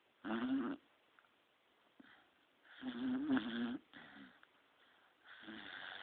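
Beagle snoring in its sleep, loud and human-like: three snores about two and a half seconds apart, each a wavering, buzzing tone, the middle one longest and loudest.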